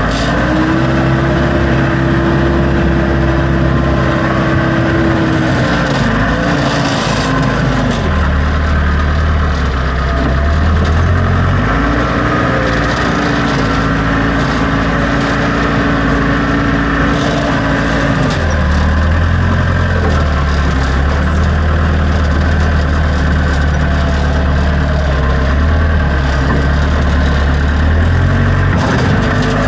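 Backhoe engine running under load, its pitch shifting as the machine works: a higher tone held for several seconds at the start and again from about 12 to 18 seconds in, dropping to a deeper note in between and through most of the second half.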